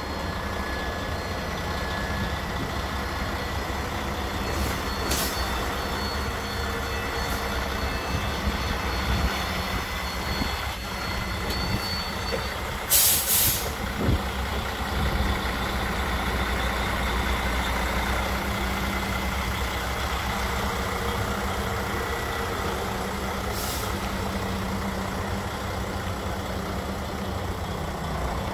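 Diesel engine of a Sterling L9500 tri-axle roll-off truck running steadily as the truck drives, with short sharp air-brake hisses: one about five seconds in, the loudest around the middle, and another near the end.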